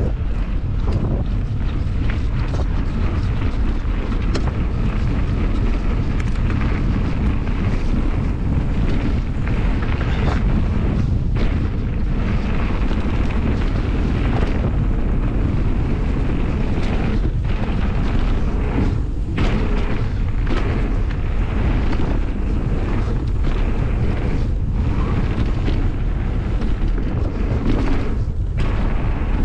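Wind buffeting the microphone over the steady rumble of a Merida Big Trail 500 hardtail mountain bike's tyres rolling on a gravel and dirt trail. Scattered knocks and rattles come from the bike jolting over bumps.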